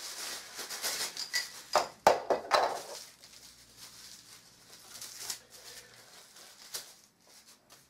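Paper packing crinkling and rustling as it is pulled off the wooden rods of a baby play gym, with a sharp knock about two seconds in. The rustling turns fainter after about three seconds, with a few light clicks.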